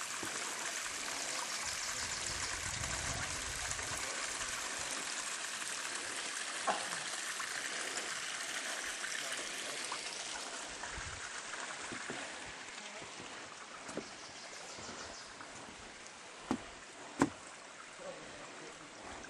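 Small rocky forest creek trickling and splashing, a steady rush of water that fades gradually over the second half. A few short sharp clicks stand out, the loudest near the end.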